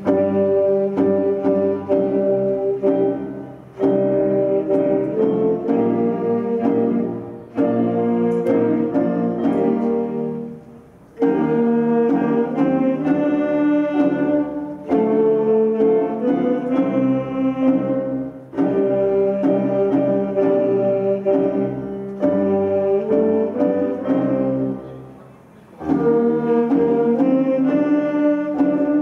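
Wind band of saxophones, clarinets and flutes playing held chords in phrases of a few seconds, with brief breaths between phrases and one longer pause a little before the end.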